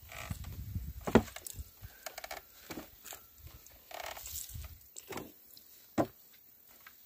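Sharp wooden knocks and clicks from a traditional wooden lever oil press at work. The loudest knock comes about a second in, with two more near the end.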